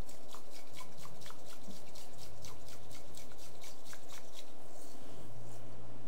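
Bamboo tea whisk (chasen) swished through hot water in a thick tea bowl: a quick, even scraping of about five strokes a second that dies away near the end. This is the rinse that warms the bowl and checks the whisk's tines for breaks.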